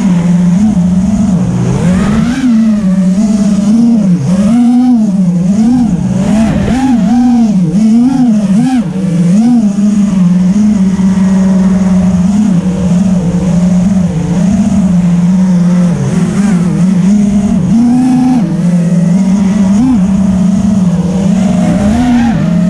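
Eachine Wizard X220 quadcopter's brushless motors and propellers whining steadily, the pitch dipping and rising again and again with the throttle during flight.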